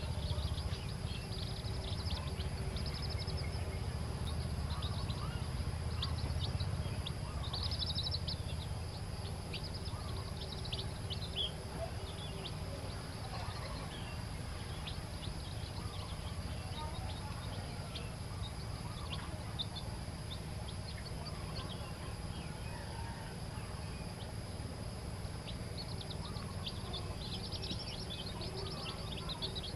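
Newly hatched chicks peeping: many short, high chirps in flurries, busiest near the start and again near the end, over a steady low rumble.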